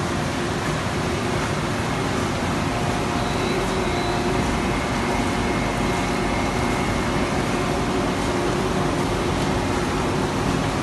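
Codimag Viva 340 waterless offset label press running with its paper web feeding through: a steady mechanical din with faint humming tones in it.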